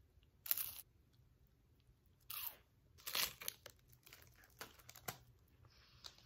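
Bites and chewing of a crisp pink wafer cookie. Three loud crunches come about half a second, two and a quarter, and three seconds in, with softer crackles of chewing after them.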